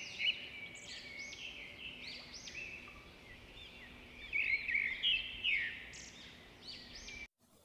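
Birdsong recording played through a smartphone's loudspeaker: many quick chirps and arching whistles, which cut off suddenly near the end.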